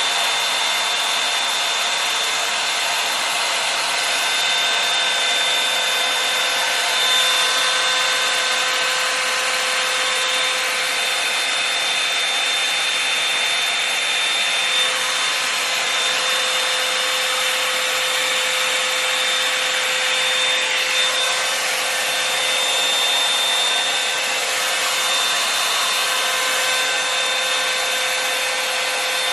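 Revlon One Step hair dryer brush blowing steadily: a rushing stream of air with a steady motor whine, worked through a section of hair.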